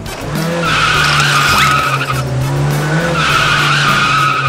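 Sound effect of car tyres screeching, played twice in a row, about two seconds each, for a toy car rolling down a plastic spiral ramp.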